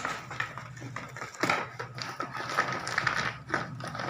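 A knife cutting through the stitching of a woven plastic seed sack, with the sack crinkling and rustling in many short, irregular crackles.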